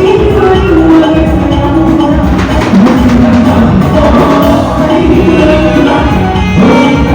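Live party band playing dance music, with a gliding melody line over drums and bass, and singing.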